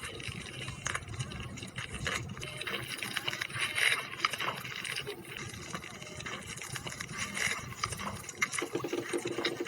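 Close-up eating sounds: wet chewing, smacking and slurping, with many small clicks and a louder smack about four seconds in.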